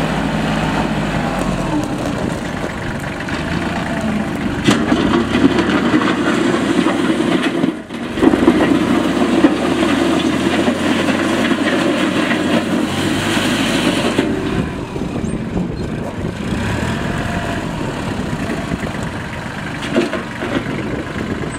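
Kubota L3130 tractor's diesel engine running steadily. It grows louder for about ten seconds in the middle, dipping briefly partway through, then settles back.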